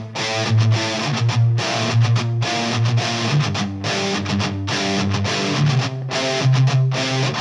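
Rock music with strummed, distorted electric guitar in a steady rhythm.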